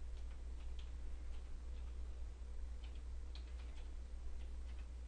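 Computer keyboard keystrokes, a scattered run of soft clicks at an uneven, unhurried pace, over a steady low hum.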